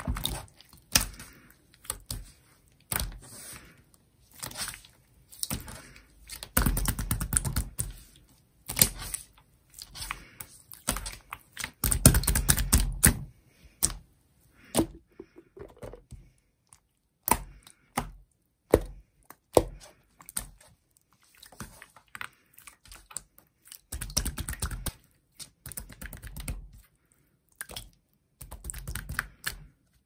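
Clear slime pressed flat, stretched and squeezed by hand, giving sticky clicks and small pops as it pulls off the palms and fingers. There are longer runs of rapid crackling squelches about six and twelve seconds in and again near the end.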